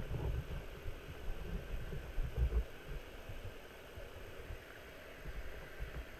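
Muffled low thuds and rumble picked up by a GoPro inside its waterproof housing underwater as it is moved about, heaviest about two and a half seconds in and dying down after, with a few more weak thuds near the end.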